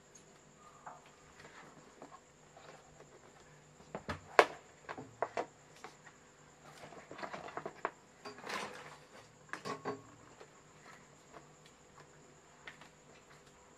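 Diving gear being picked up and handled: scattered clicks, knocks and rustling as rubber fins and a plastic mask box are lifted, with one sharp knock about four seconds in.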